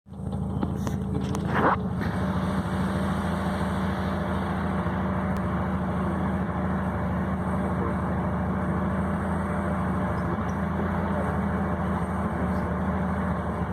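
A motor vehicle's engine running steadily at idle, with one brief, higher sound a little under two seconds in.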